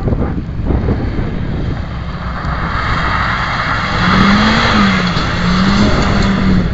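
Rally car at speed, its rushing tyre noise growing louder from about two seconds in. From about halfway through, the engine note rises and falls.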